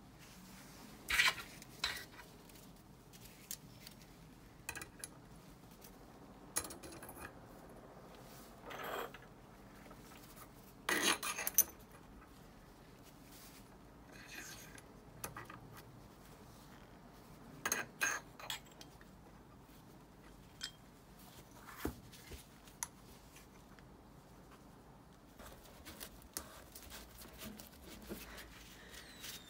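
Metal parts of a Turbosmart turbo wastegate actuator (coil spring, pushrod, diaphragm cap and housing) clinking, knocking and scraping on a worktop as they are handled and put back together. A dozen or so short, scattered clinks and brief rubs with quiet between them.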